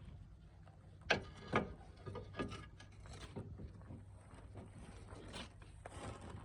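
Knocks and clatter of tools and parts being handled during work on a car, two louder knocks about a second in and then lighter irregular ones, over a low steady hum.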